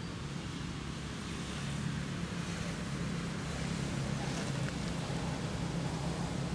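Steady low rumble of outdoor background noise, even throughout, with no monkey calls.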